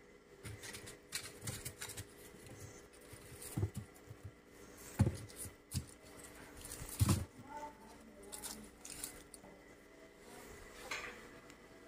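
Red onions being rummaged through in a plastic crate: rustling of dry skins and handling, with a few dull knocks as onions bump each other and the crate, the loudest about 5 and 7 seconds in.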